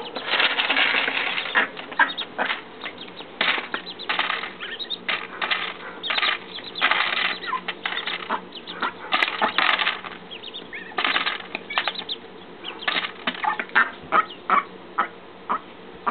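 Mallard hen and duckling eating dry cat food from a paper bowl: bursts of rapid bill dabbling and kibble clicking against the bowl, thinning out to scattered single pecks in the second half.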